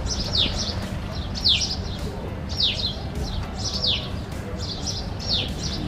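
Small birds chirping: sharp downward-sliding chirps about once a second, with softer chirps between, over a low steady background hum.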